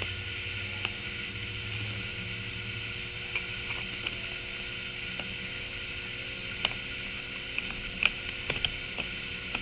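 Scattered small clicks and taps of screws being started into a seat-belt guide mounting block on a seat back and turned with a screwdriver, more of them near the end, over a steady background hum.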